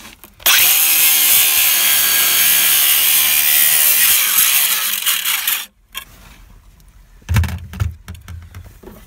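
DeWalt cordless angle grinder cutting through steel wood screws in a wooden post, running at full speed for about five seconds and then stopping. A couple of low thumps follow near the end.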